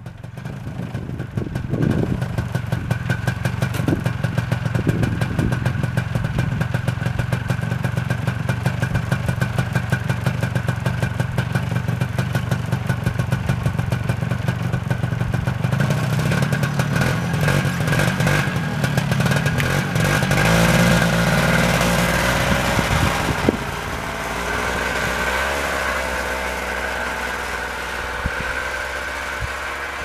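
Snowmobile engine starting up and running with a fast, even putter. Near the end it revs and fades as the machine pulls away towing a log sled.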